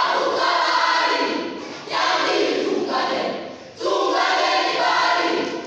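A group of student voices chanting a choral verse in unison, in three phrases of about two seconds, each ending in a short break.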